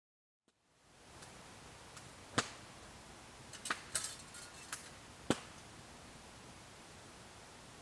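Wood campfire crackling: a few sharp, separate pops over a faint steady hiss, starting about a second in after a moment of silence.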